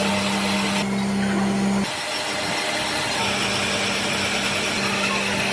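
A workshop machine or power tool running with a steady hum over a wide rushing noise. The sound changes abruptly about two seconds in and again a second later.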